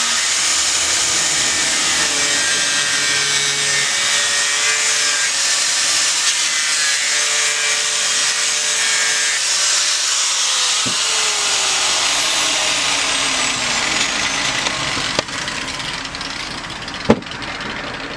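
Electric angle grinder with an abrasive disc shaping monkeypod wood: a steady motor whine over a grinding hiss. About ten seconds in it is switched off and its pitch falls as the disc spins down. A sharp knock comes near the end.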